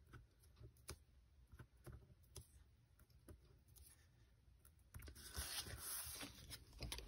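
Faint, scattered clicks and taps of fingers pressing small foam adhesive squares onto a cut cardstock piece. About five seconds in, a couple of seconds of louder paper rustling as the cardstock is handled.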